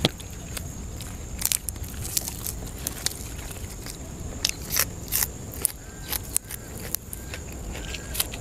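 Close-miked eating: chewing with sharp, irregular crunching and snapping clicks from grilled sausage and crisp raw greens being broken and bitten.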